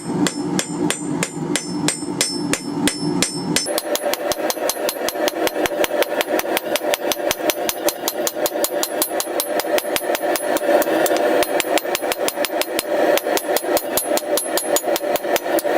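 Blacksmith's hammer striking the edges of a hot steel plate on an anvil to forge bevels: a long run of quick, even blows, each with a metallic ring, the pace picking up about three and a half seconds in.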